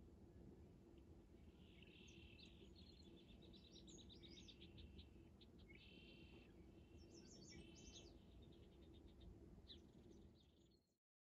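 Faint songbirds chirping and trilling, in short phrases and quick runs of notes, over a low steady room hum; it all cuts off abruptly near the end.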